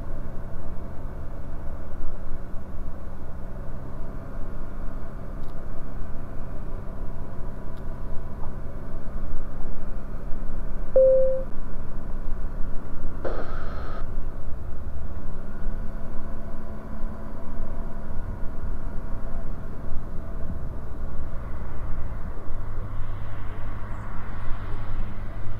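Bristell NG5 light aircraft's engine droning steadily in flight, its note shifting a little in the second half. A short electronic beep sounds about eleven seconds in, with a brief crackle a couple of seconds later.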